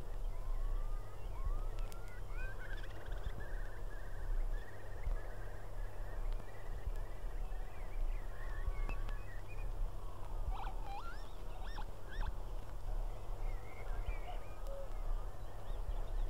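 Wild birds calling: rising whistles, a run of quick repeated notes and sharp chirps, over a steady low distant rumble.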